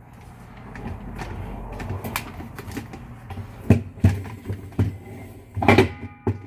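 A string of knocks and clunks from handling the washer's metal parts, the loudest about six seconds in with a brief metallic ring after it. It follows a rustling scrape in the first couple of seconds, over a low steady hum.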